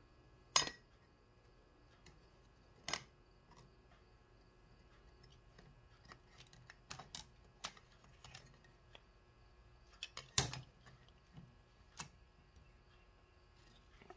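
Honda GL1200 Gold Wing clutch plates, steel and friction, clinking against each other as they are handled and lifted off the stack: sharp metal clicks at irregular intervals, loudest about half a second in and again about ten seconds in.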